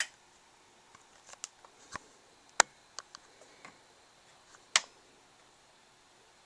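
A few sharp, irregular clicks and taps, the loudest two about two and a half and four and three-quarter seconds in, against a quiet room.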